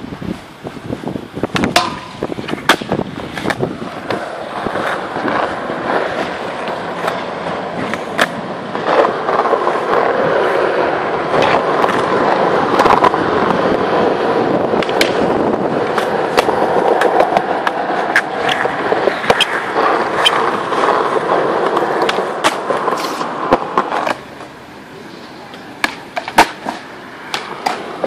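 Skateboard wheels rolling on smooth concrete, with sharp clacks of the board popping and landing scattered through. The rolling is loudest and steady from about nine seconds in until it drops away suddenly near twenty-four seconds.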